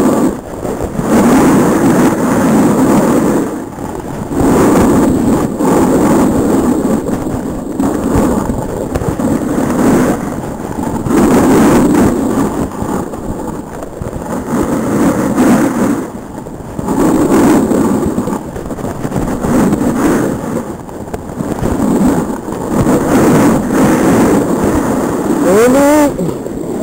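Wind rushing over a helmet-mounted camera's microphone and a snowboard scraping across packed snow, swelling with each turn every two to three seconds. Near the end comes a short voice with a wavering, gliding pitch.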